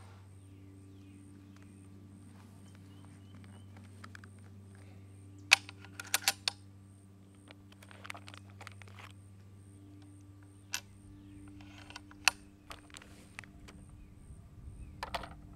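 Scattered sharp clicks and clacks of a big-bore PCP air rifle being handled, its action worked and a pellet loaded, with the loudest snaps about five and a half and twelve seconds in. A faint high ticking, about three a second, runs underneath.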